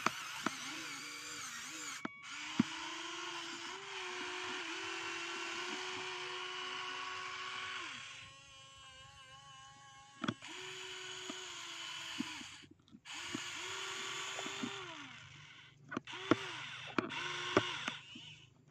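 Toy RC excavator's small electric motors whining as the boom and bucket move, in runs of a few seconds that glide up in pitch as they start and down as they stop. A few sharp clicks, from the bucket hitting dirt or plastic, are heard along with it.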